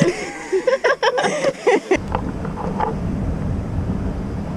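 Brief voices and handling clicks for about two seconds, then a steady low rumble.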